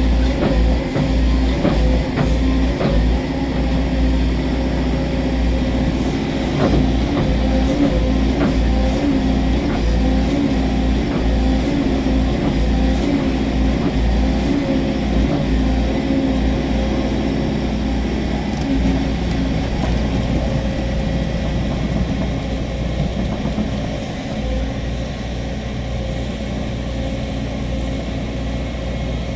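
Volvo 210 excavator's diesel engine running steadily under work, with a deep rumble and a constant engine tone. Sharp knocks come now and then during the first ten seconds or so.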